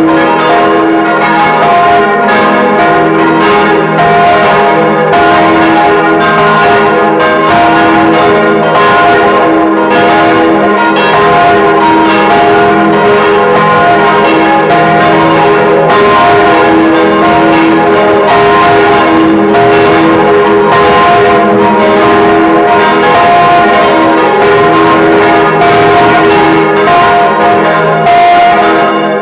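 Church bells cast by the Causard foundry of Colmar, swinging and ringing together in a full peal, heard close up inside the belfry. The strikes overlap continuously, loud and steady, leaving a dense, sustained ring.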